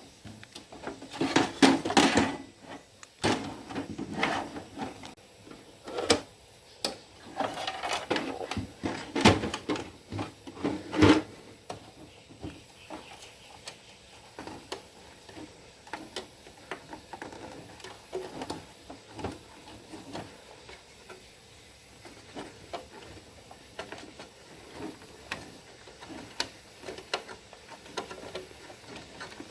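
Hands working inside a Dell Optiplex 745 desktop case to take out its power supply: a run of knocks, clicks and rattles, loudest over the first eleven seconds or so, then lighter scattered clicks.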